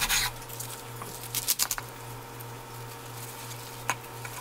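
Kitchen knife cutting through a stack of napa cabbage, perilla leaves and sliced pork on a wooden cutting board: a crunch right at the start, a few quick knocks about a second and a half in, and one sharp tap near the end, over a steady low hum.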